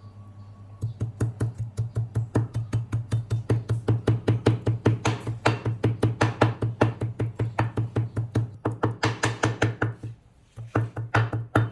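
Meat cleaver striking raw pork slices on a thick wooden chopping block in a fast, even run of thuds, about four to five a second, tenderizing the meat. The run pauses briefly near the end, then a few more strikes follow.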